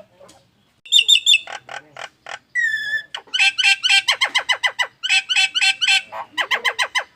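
Nias hill myna calling loudly: a short high whistled phrase, a single clear whistle, then long runs of rapidly repeated sharp notes, about six a second. This is the bird's strange alarm-like call, likened to an anti-theft alarm.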